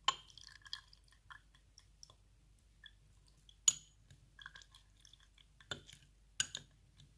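Grated turnip being squeezed by hand to press out its juice: quiet wet crunching and crackling, with a few sharp knocks scattered through.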